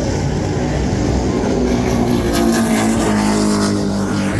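Engines of Supercat-class offshore racing catamarans running flat out as they pass, a steady engine drone whose pitch shifts a little partway through.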